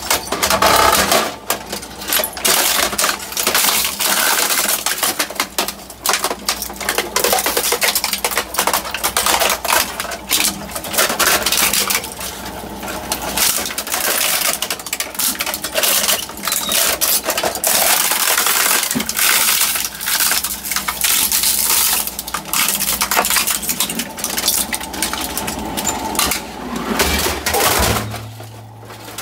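Twin-shaft industrial shredder tearing up plastic printer parts: a dense, continuous run of cracking, snapping and crunching plastic as the cutter discs chew through. Near the end the crunching eases briefly.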